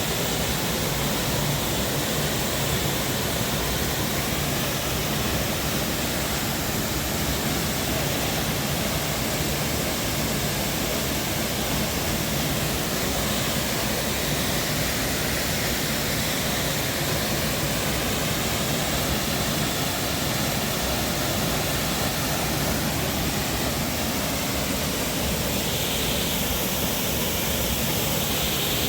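Waterfall rushing, a steady loud roar of falling water.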